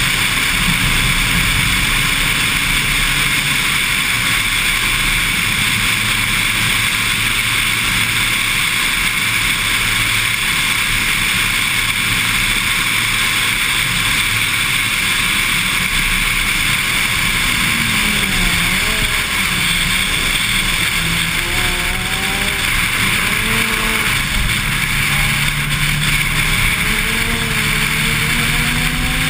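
Honda Civic EG9 SiR's 1.6-litre four-cylinder VTEC engine running hard on track under a steady rush of wind and road noise. In the second half its pitch rises and falls repeatedly as the revs climb and drop.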